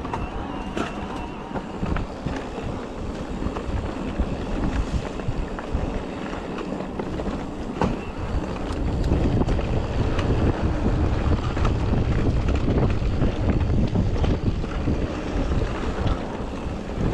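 Wind rushing over an action camera's microphone and tyres rumbling on dirt as a mountain bike rides downhill on a trail, with scattered clicks and knocks of the bike rattling over rough ground. The rush gets louder about halfway through.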